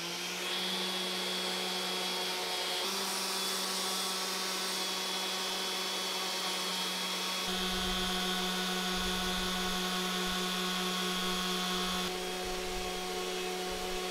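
Random orbital sander running steadily on a wooden panel: a constant motor hum with a sanding hiss over it. The tone and texture change abruptly about three, seven and twelve seconds in.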